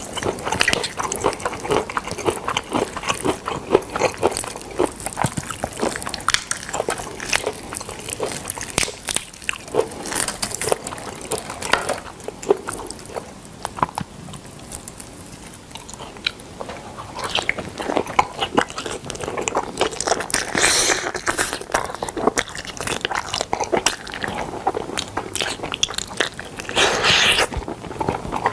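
Close-miked chewing and biting of smoked chicken, with many wet, crunchy clicks. The chewing goes quieter for a few seconds midway, and there are two short hissing bursts, one about two-thirds through and one near the end.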